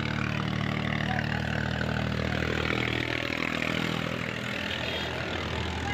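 Tractor's diesel engine running steadily as it drives along, heard from the driver's seat.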